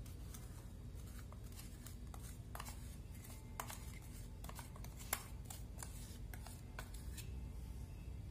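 Metal spoon scraping and tapping inside a steel mixer-grinder jar to empty ground sugar powder into a bowl: a scatter of light scrapes and clicks, the sharpest about five seconds in.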